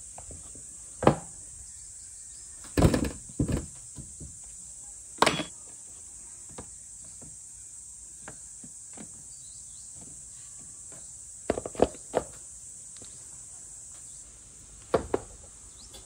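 Scattered sharp knocks and clinks of cookware being handled: squash pieces and a spoon against a metal colander and a bamboo steamer, the steamer then set down in a wok. A steady high-pitched insect drone runs underneath.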